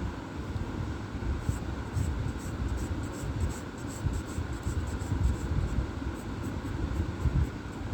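Short scratchy strokes of a drawing tool on paper, starting about a second and a half in and repeating irregularly, over a steady low rumble.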